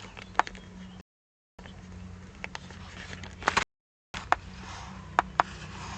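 Faulty audio track: a steady low electrical hum with a hiss over it, cut twice by dropouts to total silence of about half a second, with several sharp clicks and knocks.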